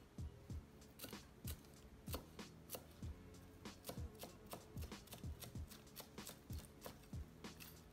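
Chef's knife chopping fresh cilantro on a wooden cutting board: a quick, even run of light knocks, about three a second.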